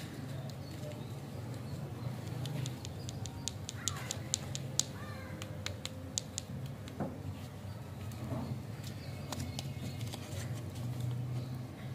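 Crinkling and crackling of a lollipop's wrapper as fingers handle and peel it, with a quick run of sharp crackles in the middle.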